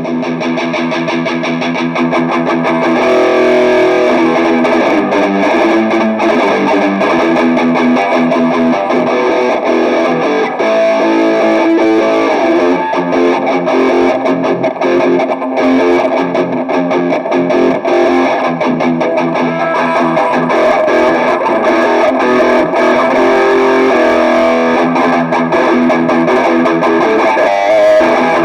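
Distorted electric guitar, a Dean DS-91 played through an Arcano Metal End distortion pedal into an LL Audio GX60 amplifier, playing a continuous passage of changing notes. It gets louder about three seconds in.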